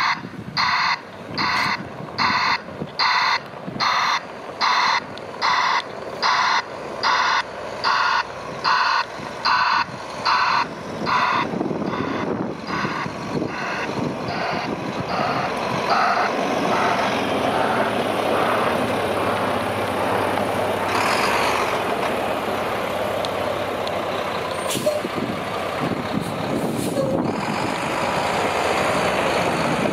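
Mack plow truck backing up, its reversing alarm beeping steadily about three times every two seconds, then fading out about halfway through. The diesel engine then runs louder as the truck pulls past, with a short air-brake hiss a little after two-thirds of the way in.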